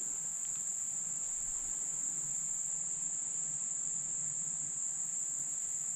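Insects, likely crickets, singing as a steady, unbroken high-pitched chorus.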